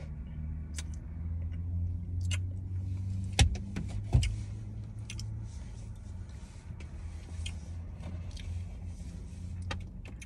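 Close-miked eating: chewing and mouth clicks from someone eating a fast-food burger and fries, over a steady low hum. Two loud knocks come about three and four seconds in.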